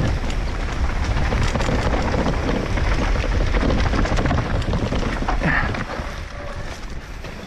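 Mountain bike riding down a rough enduro trail: wind rumbling on the microphone over the tyres and a steady clatter of small knocks from the bike. It eases off about six seconds in.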